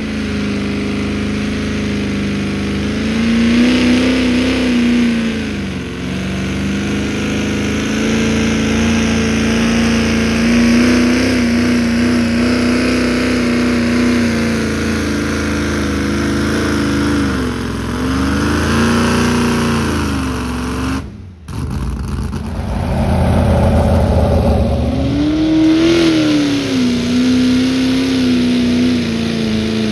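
Farm tractor engine running hard under load while pulling a weight sled, holding a steady note that sags in pitch a few times. It breaks off briefly about two-thirds through, then an engine comes back in with a pitch that rises and settles.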